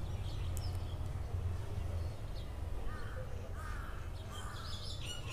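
Bird calls over a steady low hum: three short calls about halfway through, then a fast run of repeated chirps starting near the end.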